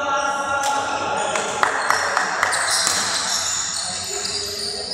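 Badminton doubles rally: players' shoes squeak in short high-pitched chirps on the court floor, with several sharp racket-on-shuttlecock hits between about one and a half and two and a half seconds in.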